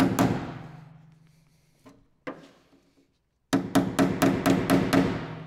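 Hammer driving a chisel into the seam of a steel car wing to split its drilled-out spot welds. A few sharp metal strikes, two lone taps, then a quick run of about eight blows near the end, with the steel panel ringing after each group.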